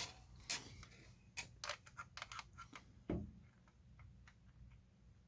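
Scattered light clicks and taps of small plastic parts being handled and pushed into place, as canopy frame pieces are tried on a plastic RC truck body. The clicks are thickest in the first three seconds, then thin out.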